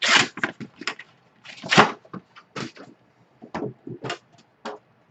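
Trading-card boxes being handled and opened by hand: irregular scrapes, taps and rustles of the box and lid, the loudest at the very start and again about two seconds in.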